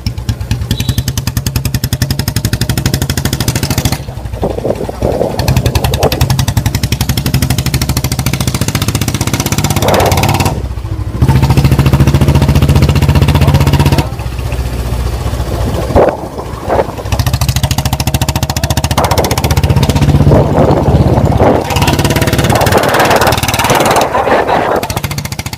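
Single-cylinder Royal Enfield motorcycle engine running while ridden, with a rapid thumping beat. The engine note rises and falls several times as the throttle is opened and eased.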